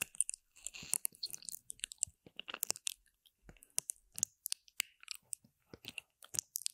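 Wet mouth sounds made right on a binaural microphone's silicone ear: irregular sticky lip smacks and clicks, several a second, close and intense on the mic.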